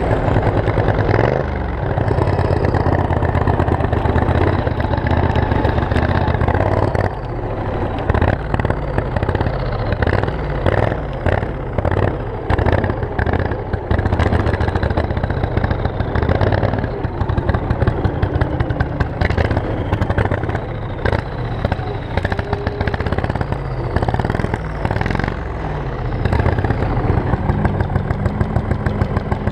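Turbocharged 26 hp Briggs & Stratton 724cc V-twin engine of a racing lawn mower running under load, its speed rising and falling as the throttle is worked.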